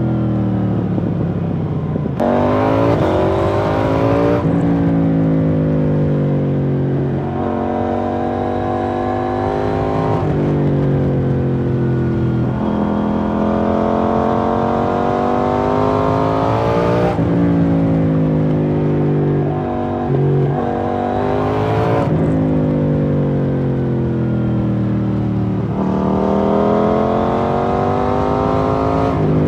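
KTM 790 Duke's parallel-twin engine through an IXRACE MK2 exhaust with the dB killer removed, heard while riding. The engine note climbs and falls over and over, with sudden jumps in pitch every few seconds as gears change and the throttle opens and closes.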